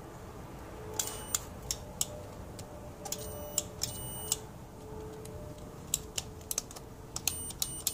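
Buttons on a joystick handle being pressed and released: a dozen or so short, sharp clicks in uneven clusters.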